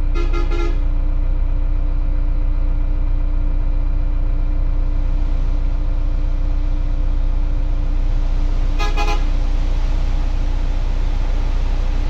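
A vehicle horn tooting twice in short, rapidly pulsed bursts, once at the start and again about nine seconds in, over a steady engine drone.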